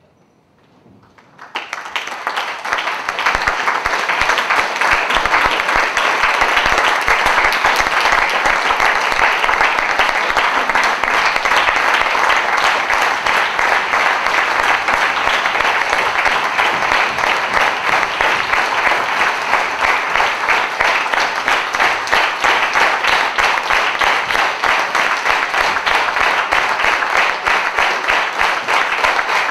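Theatre audience applauding: dense clapping of many hands that breaks out suddenly about a second and a half in, then holds at a steady level.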